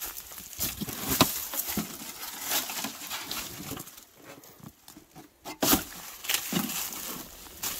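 Footsteps crunching through dry leaf litter, with rustling and scraping as a rusty steel plate is lifted from the leaves by hand and laid back down, and one sharp knock a little past halfway.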